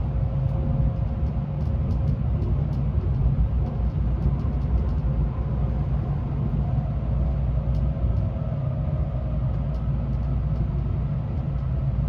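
Running noise of a Tokaido Shinkansen N700A train heard inside the passenger car: a steady low rumble, with a faint tone rising slightly in pitch in the second half.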